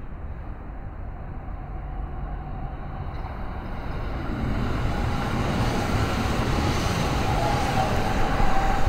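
Kintetsu 80000 series "Hinotori" limited express electric train approaching and passing beneath, growing steadily louder as it nears. A low rumble and rising hiss build up, with a steady whine that is strongest near the end as the cars pass right below.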